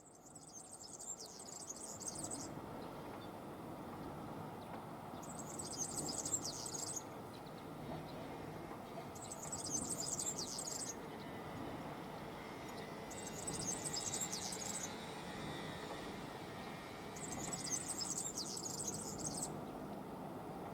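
An insect chirping in high-pitched bursts of about two seconds each, repeating about every four seconds, over a steady low background noise.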